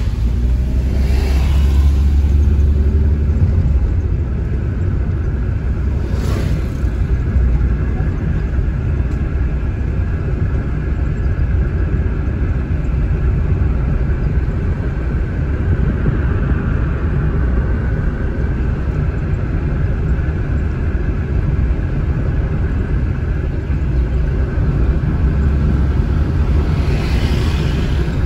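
Steady low rumble of a car's engine and tyres on the road, heard from inside the cabin while driving, with a few brief swells of hiss near the start and near the end.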